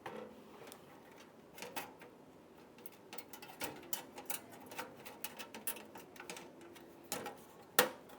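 Scattered light clicks and taps of computer parts being handled and fitted by hand, with one sharper knock near the end.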